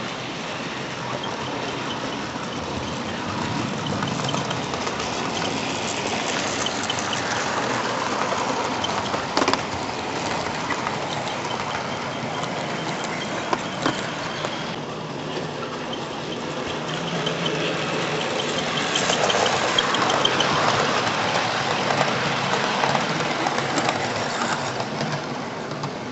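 00 gauge model train running along the track: a continuous mechanical rattle and whirr that swells as it comes closest, around twenty seconds in, with a few sharp clicks along the way.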